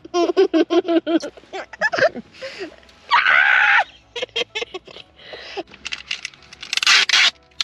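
A small child and a woman squealing and shrieking in play, with one loud scream about three seconds in and rustling close to the microphone.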